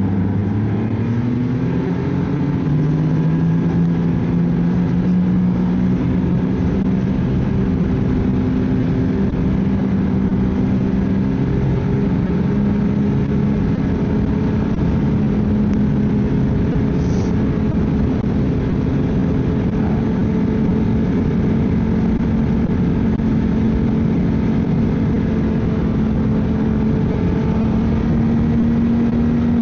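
Ski-Doo snowmobile engine picking up speed over the first few seconds, then running steadily at cruising speed with its pitch creeping slowly higher.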